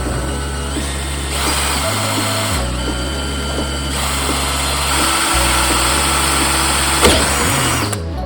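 A power tool runs steadily for most of the stretch, starting about a second in and cutting off abruptly near the end, over background music with a steady bass line.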